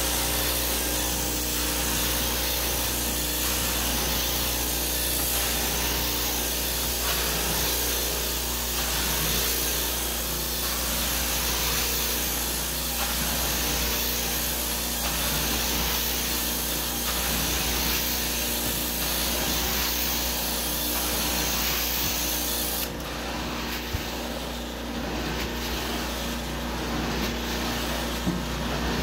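Carpet steam-cleaning extraction wand working over carpet: a steady rushing of suction and spray that swells and dips with each push-pull stroke. The high hiss drops away about three-quarters of the way through.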